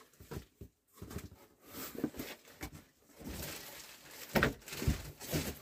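Rummaging: irregular rustling with soft knocks and scrapes as things are moved about, a little louder about four seconds in.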